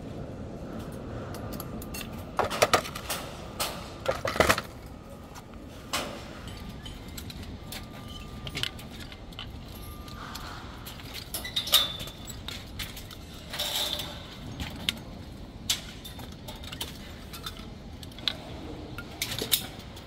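Irregular metallic clinks and taps as a construction worker handles steel tools and hardware, over a steady low rumble of site noise.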